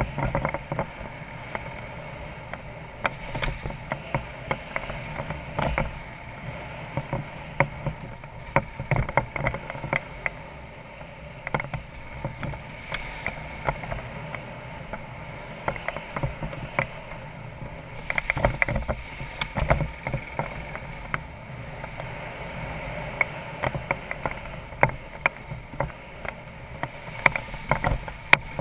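BMW F650GS Dakar's single-cylinder engine running at low speed on a rough gravel track, with frequent sharp knocks and clatters from the bike and camera mount jolting over the stones.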